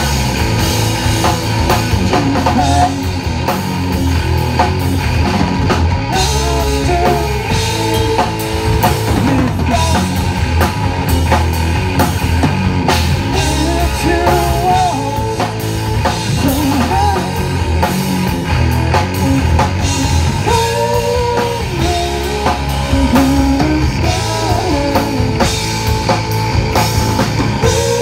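Live rock band playing: a woman singing lead over distorted electric guitar, bass and a driving drum kit, heard loud through the stage PA.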